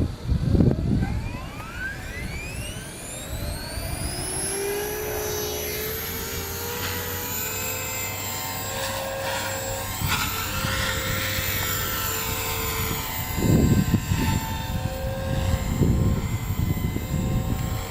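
Beam E4 electric RC helicopter spooling up: a high-pitched whine climbs steeply over the first few seconds, then settles into a steady rotor and motor whine. Wind gusts buffet the microphone loudly twice near the end.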